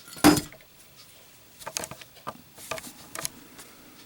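A lit brass-cased Zippo lighter dropped onto a hard surface in a drop test, landing with a single sharp clank that rings briefly, about a quarter second in, followed by a string of small metallic clicks and taps.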